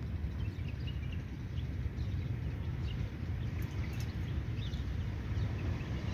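A cat eating dry kibble from a stainless-steel tray: faint crunches and light clicks scattered over a steady low outdoor rumble.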